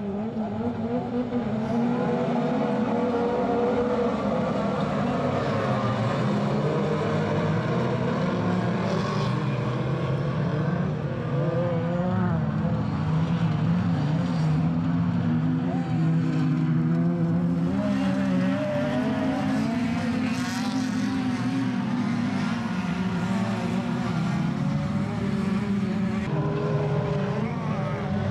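Several production-based autocross cars racing on a dirt track: a dense, overlapping mix of engines revving, their pitch rising and falling as drivers accelerate and lift.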